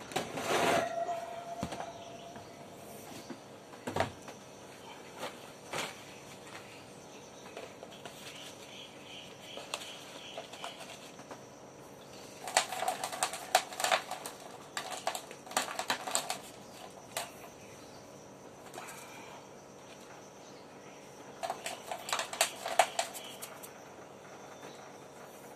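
Baking soda shaken from its container into an empty plastic tub: two spells of quick rattling taps, one about four seconds long and a shorter one near the end, after a few single knocks.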